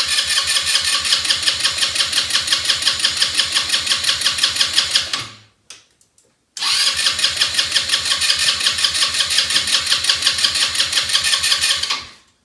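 Electric starter of an Elstar 150cc quad bike cranking the engine in two long goes, each with an even pulsing rhythm, with a short pause between them. The engine never catches: it turns over without firing, even with a freshly cleaned spark plug, and the owner suspects a lack of spark or a bad plug.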